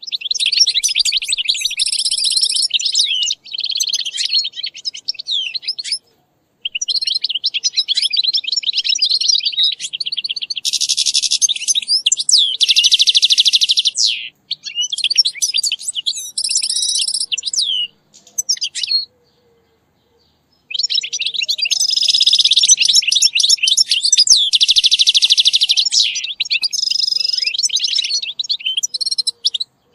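European goldfinch song: long runs of rapid, high twittering mixed with buzzy trills, broken by short pauses, the longest about two-thirds of the way through.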